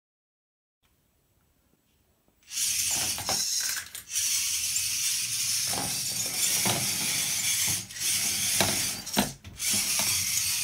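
VEX IQ robot running on a wooden floor: its small electric motors, chain-driven wheels and tread-driven lift arm making a steady mechanical whirring and rattling that starts about two and a half seconds in, with a few sharp clicks and brief pauses.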